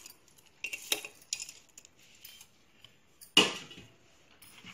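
A plate knocking and clinking against the rim of an aluminium pressure cooker as whole spices are tipped in: a few light clinks, then one sharp clatter, the loudest, a little over three seconds in.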